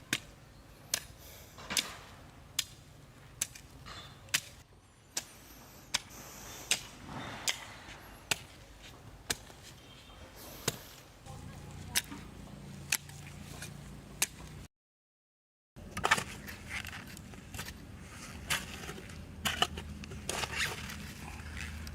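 Repeated sharp knocks of a hand tool striking, at an even pace of a little more than one a second.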